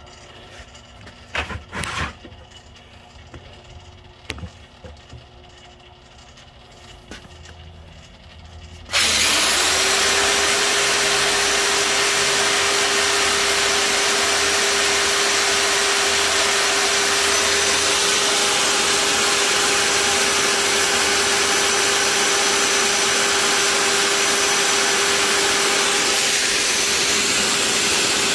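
A few knocks and clicks while the setup is handled, then about nine seconds in a crankshaft polisher starts abruptly and runs with a steady whine under a loud, even hiss. This is its abrasive belt polishing rust and corrosion off a camshaft's journals.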